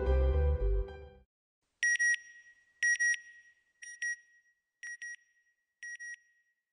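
Background music ending about a second in, then an electronic beep sound effect: short high beeps in close pairs, about once a second, growing fainter with each pair.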